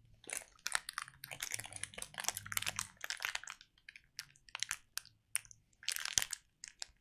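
Crinkling plastic wrapper of an individually wrapped hard candy being twisted, pulled and bitten at, in two long bouts of crackling, without tearing open.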